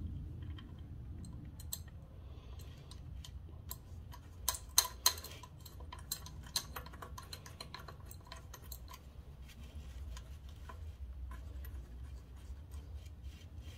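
Irregular small metallic clicks and taps of a hex key and small bolts with spring washers being worked into a metal headlight bracket, with a cluster of louder clicks about four and a half seconds in. A faint low hum runs underneath.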